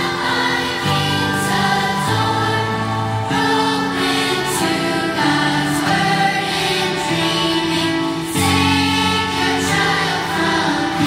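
A large children's school choir singing a hymn under a conductor, over held low accompaniment notes that change about once a second.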